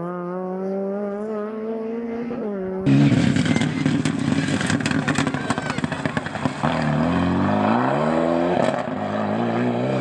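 A rally car's engine note rising steadily, then an abrupt cut about three seconds in to a louder Renault Mégane RS rally car accelerating hard on gravel. Its engine pitch climbs through a gear, drops at a shift, then climbs again over a rough hiss of tyres and loose stones.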